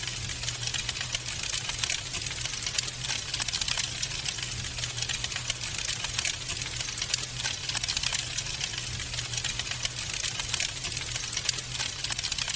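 Wood fire crackling: a dense stream of small, rapid pops and snaps, with a low steady hum underneath.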